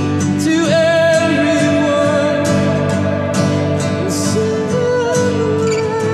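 Live acoustic song: a male voice singing long held notes over a strummed acoustic guitar.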